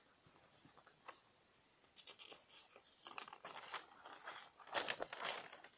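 Faint rustling and crackling, sparse at first and growing denser and louder after about two seconds, with a cluster of sharp clicks near the end.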